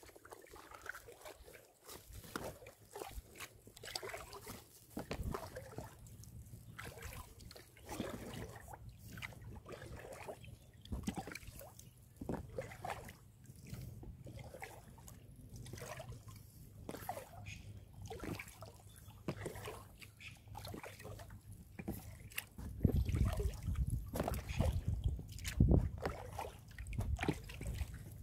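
Paddling an inflatable kayak: repeated sloshes and drips of water from the paddle blades. A louder low rumble comes in near the end.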